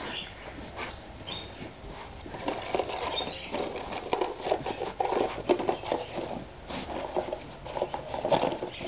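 A pot-bellied pig nosing and pushing a small cardboard food box across a rug, the cardboard scraping and rustling in irregular bursts as she works to get the treat out.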